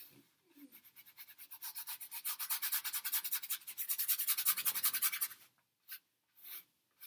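Paintbrush scrubbing paint onto a stretched canvas in rapid back-and-forth strokes, growing louder and stopping about five and a half seconds in, followed by a couple of short single strokes.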